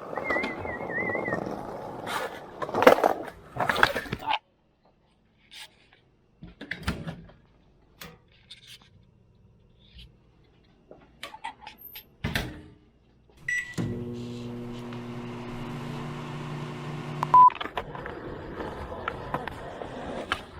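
Microwave oven: a short keypad beep, then the oven running with a steady electrical hum for about three and a half seconds, and a single beep. Scattered clicks and knocks come before it.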